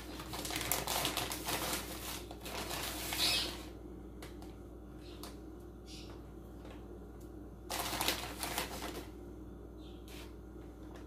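Measuring spoon scooping, scraping and tapping while skim milk powder is measured out. A spell of dry rustling and scraping runs about three and a half seconds, with light clicks after it and a second short spell of scraping about eight seconds in.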